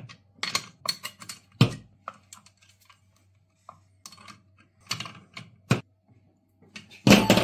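Irregular sharp metal clicks and knocks of a T-wrench socket and flat screwdriver working on a chainsaw's guide-bar nuts and chain tensioner, loudest near the end.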